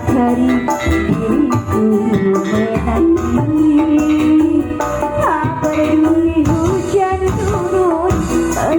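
Music from an Indonesian song between sung lines: a plucked-string melody with gliding notes over hand drums, played loud.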